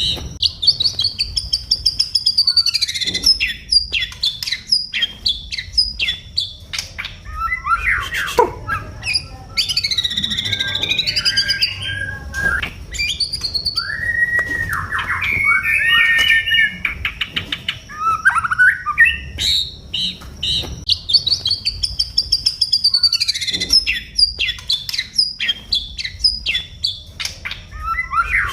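White-rumped shama (murai batu) song: a varied run of loud whistles, slurred rising and falling notes and fast rattling trills. The same sequence of phrases comes round again about 20 seconds later, as in a looped gacoran recording played to get a kept songbird singing.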